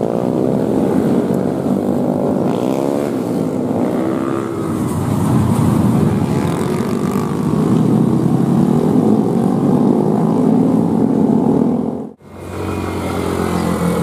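A group of motorcycles and scooters riding past one after another, their engines rising and falling in pitch as each goes by. About twelve seconds in, the sound breaks off for a moment and a deeper, steady engine drone follows.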